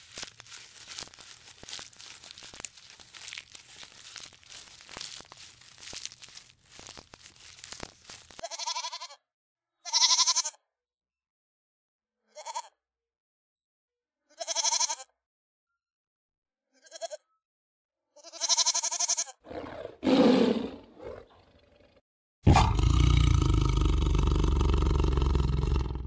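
Giraffes tearing at and chewing leafy branches, a crackling rustle. Then, from about eight seconds in, young goats bleating in a string of short calls with silences between. In the last few seconds a tiger gives a loud, rough, sustained roar.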